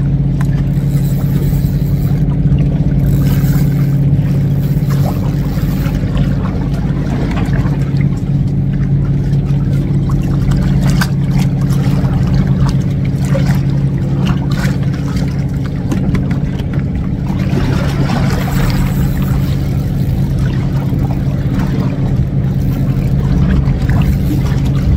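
An engine running steadily at an even pitch, a continuous low drone.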